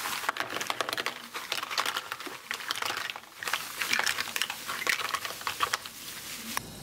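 Live mussels poured from a plastic bag into a plastic colander: the bag crinkles and the shells clatter against one another and the colander in a dense run of clicks, stopping abruptly near the end.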